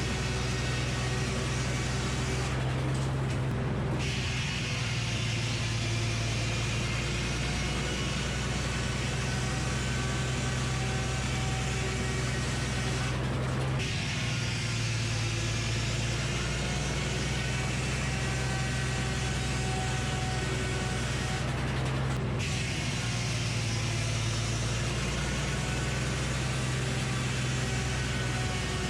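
Sawmill running as it saws a poplar log into fence boards: a steady engine hum with the blade's cutting noise over it, changing briefly about every nine or ten seconds.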